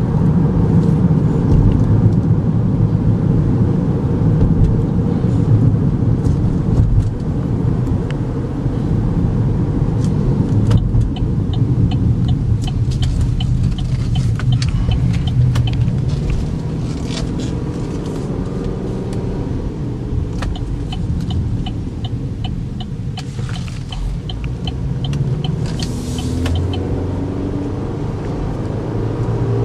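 Steady low road and engine rumble inside the cabin of a moving 2012 Chevy Equinox with its 2.4-litre four-cylinder engine. Two runs of quick, even ticking, each a few seconds long, come in the middle.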